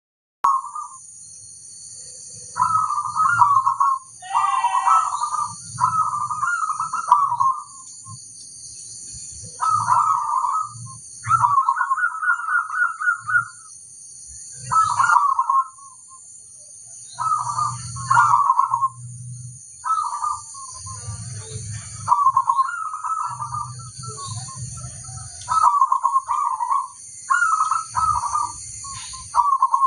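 Zebra dove (perkutut) singing: a series of rolling, trilled coo phrases, each a second or two long with short pauses between. A steady high-pitched buzz runs underneath throughout.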